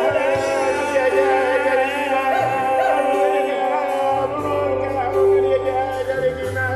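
Live band playing a song through a PA, with held bass notes under a wavering sung vocal line and electric guitars.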